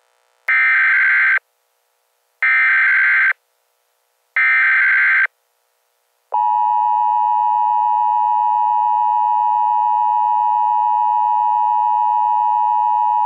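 Emergency Alert System header: three short bursts of warbling data tones about two seconds apart, then the steady two-tone attention signal beginning about six seconds in.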